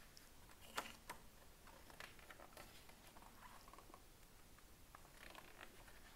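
Faint rustles and taps of a paperback picture book's paper pages being turned and pressed flat by hand, with one sharper tap just under a second in.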